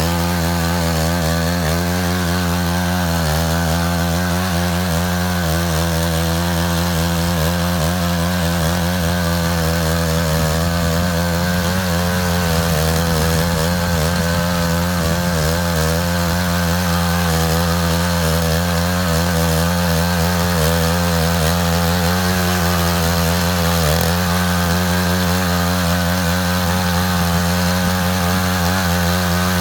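Matsuda walking tractor's engine running steadily at a constant speed while it drives a trench-cutting ditcher.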